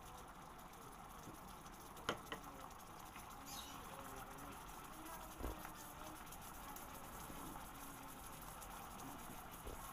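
A plastic serving spoon scooping creamy chicken and broccoli from a pot onto a plate, making faint scrapes and taps. There are two sharp clicks about two seconds in and a duller knock about halfway through.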